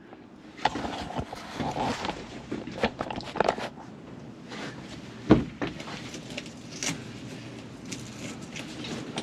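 Handling noise of a canvas truck-bed tent being fitted with its poles: canvas rustling with scattered clicks and knocks, and one louder thump about five seconds in.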